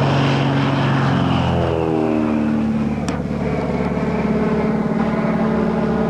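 Crop-dusting light aircraft's piston engine passing low overhead: its drone drops in pitch during the first two seconds as it goes by, then runs on at a steady lower pitch.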